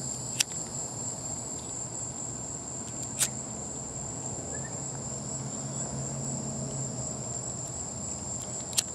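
Steady, high-pitched chorus of crickets, with three short, sharp pops: one about half a second in, one a little after three seconds, and one near the end.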